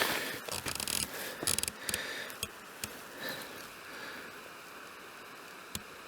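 Rubbing and scraping handling noises with several small clicks, mostly in the first two seconds, then quieter.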